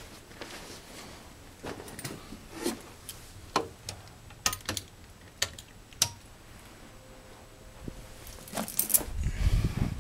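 Irregular sharp clicks and light knocks, like small hard objects being handled, then a louder stretch of low thuds and rumbling near the end.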